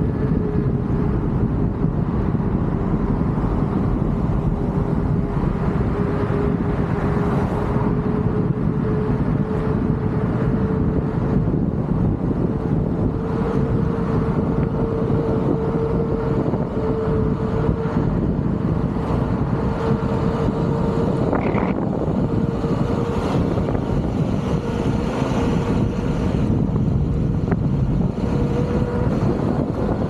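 Begode Master electric unicycle riding along: its hub motor gives a steady whine that drifts slightly up and down in pitch with speed, under constant wind buffeting on the microphone.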